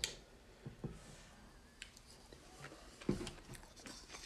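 Faint handling sounds at a table: a few light clicks and soft knocks of hands moving food on a plate, the strongest knock about three seconds in.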